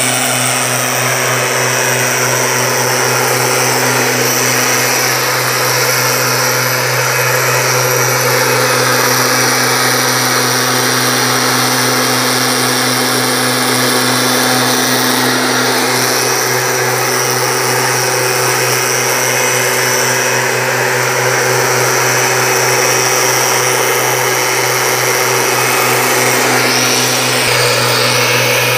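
STIHL backpack mistblower's two-stroke engine running steadily at working speed, with the rush of air from the blower tube as it sprays weedkiller mist.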